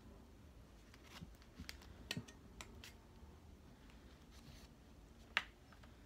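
Plastic spoon scraping canned cat food out of a small can and tapping it onto a plastic zip-top bag: scattered faint clicks and taps, the sharpest about five seconds in.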